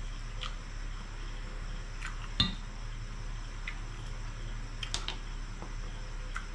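Crispy pata (deep-fried pork knuckle) being pulled apart by hand: a few scattered crackles and clicks from the crisp skin and meat, with one louder knock about two and a half seconds in. A steady low hum runs underneath.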